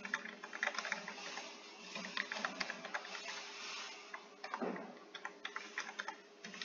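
Computer keyboard typing: quick, irregular runs of key clicks with short pauses, over a faint steady hum.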